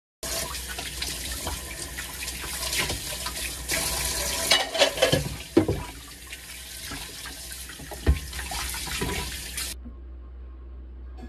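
Kitchen tap running into a sink, with a few sharp knocks and clatters of things handled under the stream; the water stops suddenly near the end.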